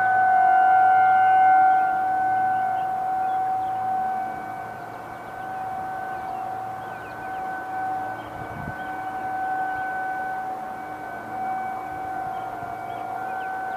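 Federal Signal 2001-series outdoor warning sirens sounding a steady tone for a scheduled monthly test. The tone holds one pitch while its loudness slowly fades and swells as the rotating sirens turn.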